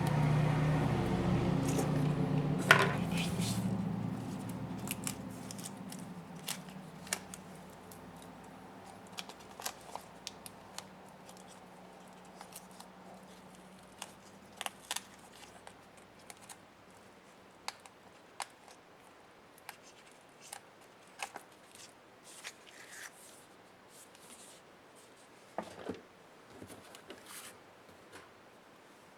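Small, sharp clicks and taps scattered at uneven intervals as tools and fingers work on laptop parts during disassembly. A low, steady hum is loudest at the start and fades away over the first six seconds or so.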